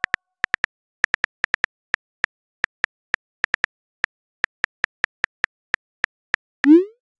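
Phone keyboard tap clicks from a texting app, a few a second and irregular, as a message is typed out, followed near the end by a short rising whoosh as the message is sent.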